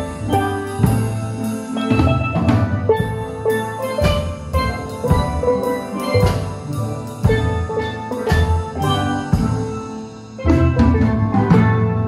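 Steel band playing a tune: many steelpans, including bass pans, struck in fast runs of ringing notes, with a drum kit keeping the beat. The music thins briefly about ten seconds in, then comes back fuller.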